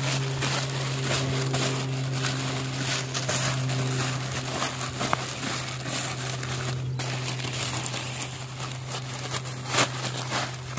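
Plastic bags crinkling and rustling irregularly as hands scoop and press powdery flour bait in a thin white plastic bag and push it into a black plastic bag. A steady low hum runs underneath.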